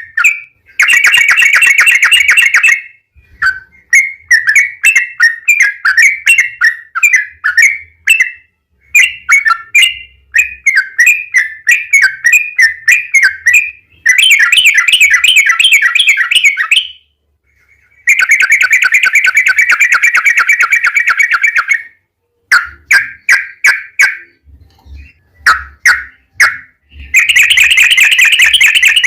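Yellow-vented bulbul (trucukan) singing loudly: quick, bubbly chattering phrases broken by several long rapid trills lasting two to four seconds each.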